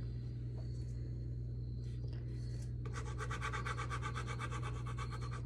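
Pen scratching on paper while drawing, with a run of quick, even back-and-forth strokes, about ten a second, starting about three seconds in. A steady low hum runs underneath.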